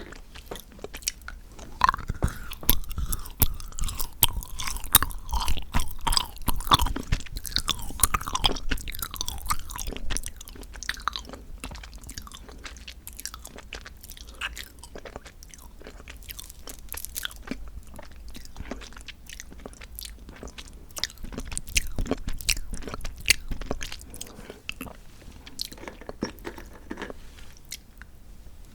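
Close-miked chewing and crunching of chocolate, with many crisp crackles and moist mouth sounds; the chewing comes in two louder stretches with a quieter spell between.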